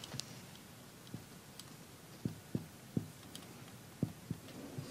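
Dry-erase marker writing on a whiteboard: a few faint, short taps and strokes as the figures are drawn.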